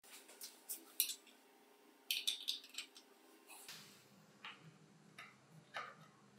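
Light metallic clicks and taps from handling a jigsaw's painted steel base plate and the small steel pin being fitted into its bracket. A quick flurry of clicks comes about two seconds in, and single ones are scattered through the rest.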